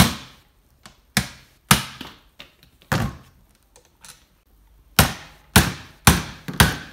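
Hammer blows knocking the bearings out of a wheelchair rear wheel hub: about eight sharp knocks, irregularly spaced, with a pause of about two seconds midway and a quicker run of four near the end.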